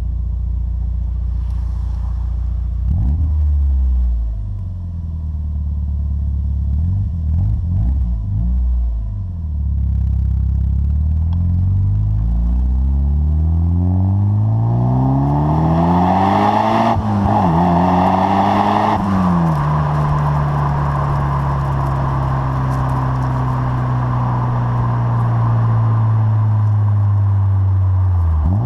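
Mitsubishi Lancer Evolution VI's turbocharged 2.0-litre 4G63 four-cylinder engine running through a custom rear exhaust box. It idles, takes a quick blip, then a few short blips, before a long climb in revs that peaks, falls back and holds steady at higher revs until it drops near the end.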